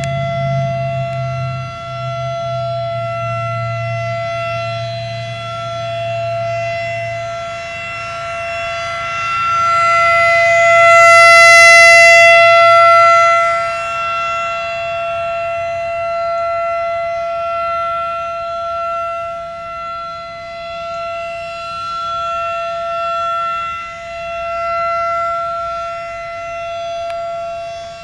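Federal Signal 2001-SRN electromechanical warning siren sounding a steady, painfully loud tone. It swells to its loudest about ten to thirteen seconds in as its rotating head sweeps past, then falls back, rising and falling more gently.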